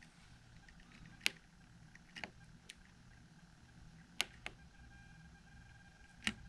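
About six sharp, separate clicks at irregular intervals, from the push buttons and rotary-encoder knobs of a small Arduino circuit being pressed and turned, over a faint low hum.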